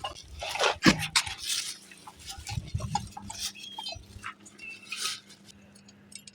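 Light metallic clinks and taps, repeated irregularly and louder in the first half, over a faint steady low hum that starts about a second in.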